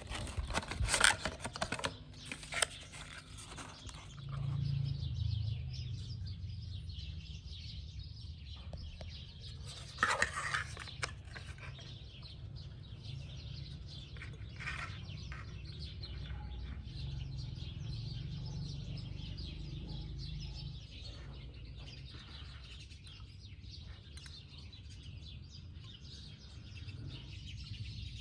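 Cardboard perfume packaging being handled: rustling, scraping and tapping as the bottle is drawn out of its paperboard box and insert, loudest in the first few seconds and again briefly about ten seconds in, over a steady low hum.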